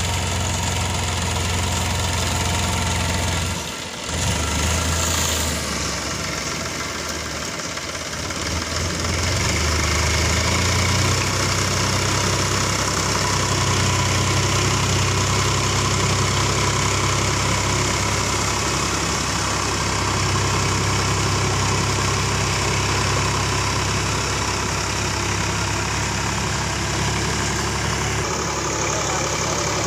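A 50 hp two-wheel-drive tractor's diesel engine running steadily under load as it pulls a rotary tiller through a flooded field. The sound dips briefly about four seconds in and grows louder about ten seconds in.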